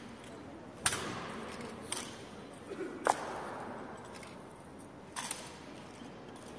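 Honor guard rifle drill: four sharp, separate knocks and slaps of rifles being handled and struck, about a second apart at first, the loudest about three seconds in, each echoing in the large stone hall.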